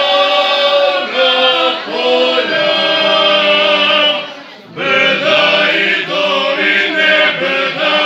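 Male vocal group of five singing a traditional folk song a cappella in close harmony, holding long notes. They break off briefly about four and a half seconds in, then come back in together.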